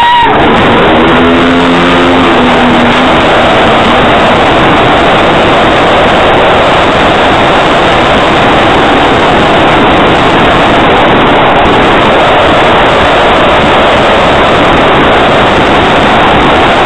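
Fireworks going off in a dense, continuous barrage, loud enough to overload the microphone into a steady, distorted wall of noise.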